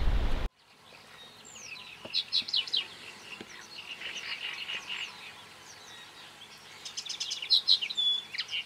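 Small songbirds chirping and singing: rapid trills and short whistled notes, with a held pure whistle near the end. Half a second in, a low outdoor background rumble cuts off abruptly.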